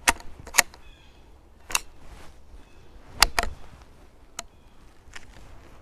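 Sharp metallic clicks from the bolt of a Savage 93R17 .17 HMR rifle being worked after a shot, seven or so separate clicks spaced irregularly, the loudest pairs near the start and about three seconds in.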